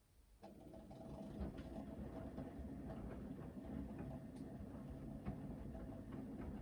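Hoover VHD 9163 ZI washing machine's drum starting to turn about half a second in after a pause in the main wash, its motor whining steadily under the tumbling load, with irregular clicks and knocks from the laundry in the drum.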